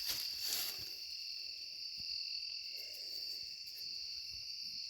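Steady high-pitched chorus of insects, like crickets, trilling without a break. A few soft crunches sound near the start.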